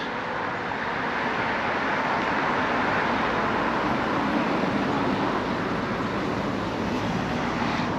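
Steady rushing road and traffic noise with no single event standing out; it swells slightly over the first few seconds, then holds even.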